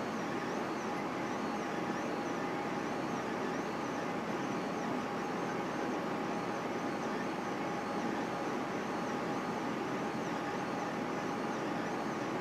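Solidoodle 3 3D printer running mid-print: a steady whine from its stepper motors as the print head moves, with a repeating high warble of small rising and falling sweeps.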